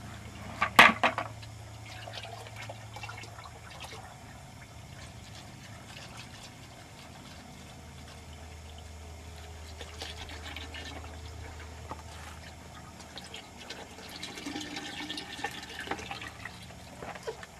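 Biodiesel running into a vehicle's fuel tank as it is filled, with a loud clunk about a second in.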